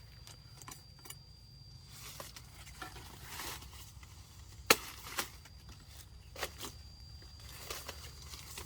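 Scattered rustles and small clicks, with one sharp crack about five seconds in.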